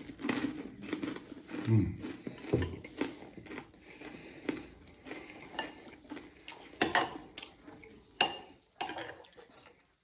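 Metal spoon clinking and scraping against a ceramic bowl as food is scooped up, in short irregular clicks, with chewing between scoops.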